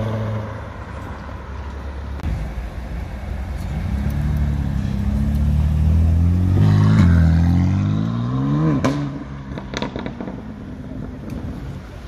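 Sports car engines in the street: one car's engine fades as it pulls away, then a BMW coupe drives close past, loudest about six to seven seconds in, and accelerates away with its engine note rising. A few sharp cracks follow near the nine-to-ten-second mark.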